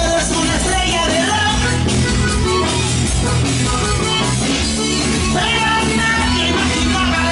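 Loud recorded rock-style song with singing, guitar and drums, played over a party sound system.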